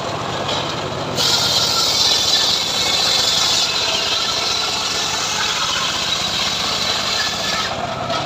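Homemade engine-driven sawmill running steadily, its blade cutting through sengon wood: a loud hiss comes in about a second in over the engine's steady drone and drops away near the end.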